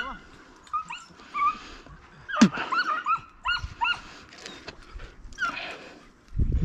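Hunting dogs yipping and baying in quick, short, high calls while chasing a rabbit, with one sharp, loud yelp about two and a half seconds in.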